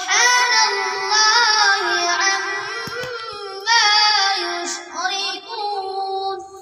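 A boy singing solo and unaccompanied into a microphone, with long held, wavering notes and a short breath pause about halfway through.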